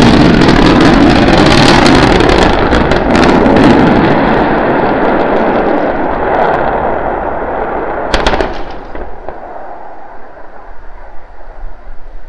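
Starship SN9's Raptor rocket engines firing for the landing burn, heard from a distance as a loud crackling rumble that slowly fades. About eight seconds in a sharp blast breaks in as the vehicle explodes on the landing pad, followed by a dying rumble.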